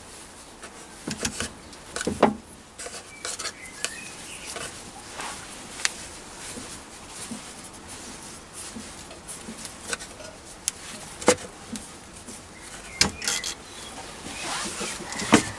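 Light metallic clicks and soft rubbing as a three-jaw chuck is screwed by hand onto the oiled spindle thread of a Myford ML7 lathe; a handful of sharp ticks come at irregular intervals, with quiet scraping between them.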